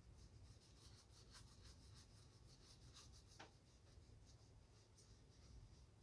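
Shoeshiner's strokes rubbing over leather shoes during a shine: faint, quick, irregular scratchy strokes.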